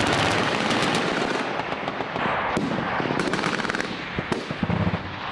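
Live-fire military range: rapid machine-gun bursts mixed with single shots and explosions, a dense, continuous din of firing.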